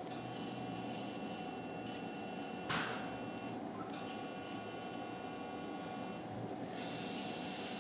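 Steady electrical hum with several faint fixed tones from operating-room equipment. A brief hiss comes about three seconds in, and a steady hiss from about seven seconds in, as the electrosurgical pencil cuts and coagulates tissue.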